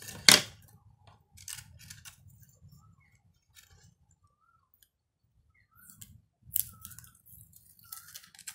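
Kraft and crepe paper rustling as it is folded and pressed into place by hand, with a sharp click near the start and a quiet stretch in the middle. Near the end there are a few louder rasps of clear adhesive tape being pulled off its roll.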